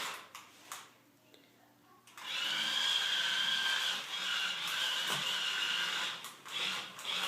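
Toy remote-control car's small electric motor whining steadily, starting about two seconds in and running for about four seconds.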